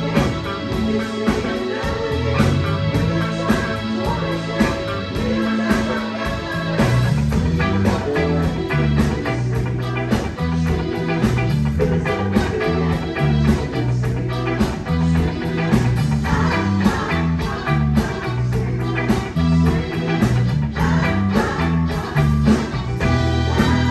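A live band playing a song with electric guitar, bass and drums, with a steady beat and a moving bass line.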